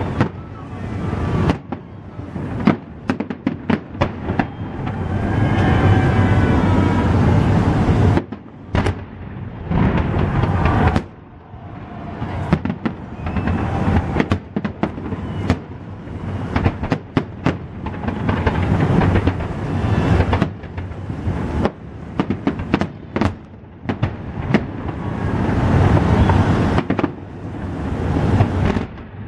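Fireworks display: bursting shells banging and crackling in dense clusters, with a few brief lulls between volleys.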